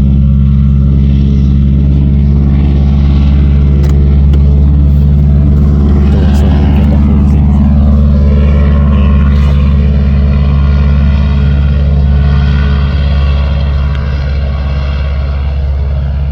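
Small propeller plane's engine running at takeoff power over a steady low engine drone; around the middle its pitch slides up and down as it goes by, then holds steady.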